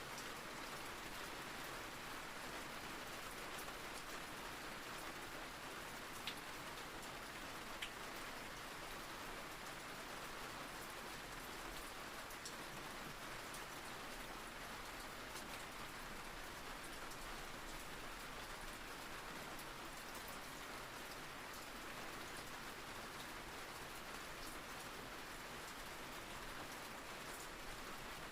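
Steady rain falling, an even hiss with a few sharper drops standing out, two of them about 6 and 8 seconds in.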